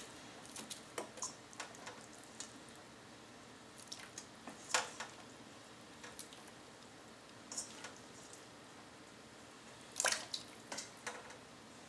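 Pieces of raw beef being set by hand into water in a pressure cooker pot: scattered small splashes and drips, the loudest about five seconds in and again about ten seconds in.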